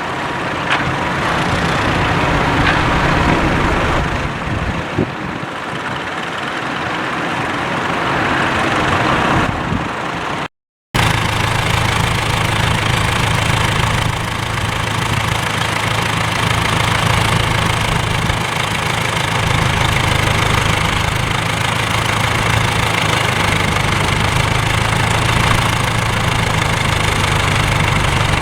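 Vintage tractor engines running; after a short break about ten seconds in, one engine runs at a steady idle.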